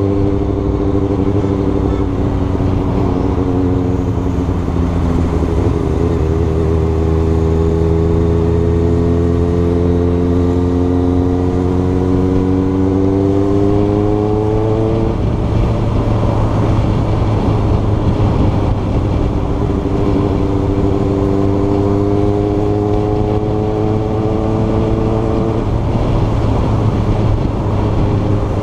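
Sport motorcycle engine running under way, heard from the rider's position, over a dense rush of noise. Its pitch climbs slowly for about fifteen seconds, falls away suddenly, then climbs again and drops off near the end.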